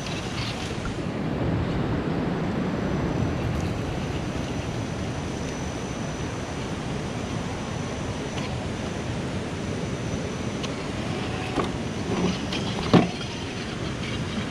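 Steady rumble of wind on the microphone in open woodland, with a few sharp knocks late on, the loudest about thirteen seconds in.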